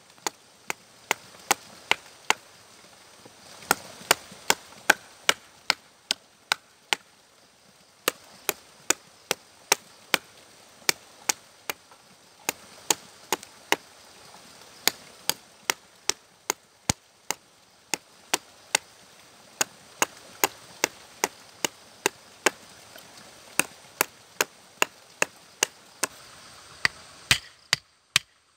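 Wood being chopped with a short bladed tool: a long run of sharp, separate strikes, about two a second, with a few brief pauses between runs.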